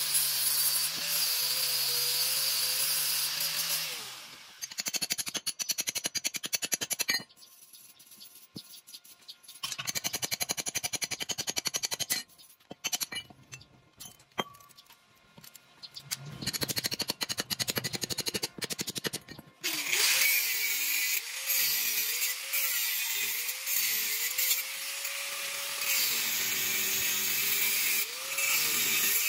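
Angle grinder cutting and grinding a steel pipe, its pitch dipping and recovering as the disc bites. Midway the grinding stops for a long stretch of scattered clinks and knocks as the metal is handled, then a grinder runs again, steadily, for roughly the last ten seconds.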